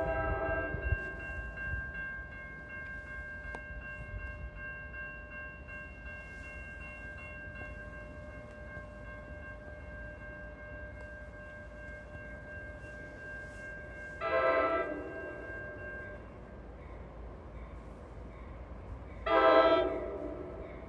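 Multi-chime train horn: the tail of a blast fades out about a second in over a low train rumble, then two short blasts about five seconds apart near the end.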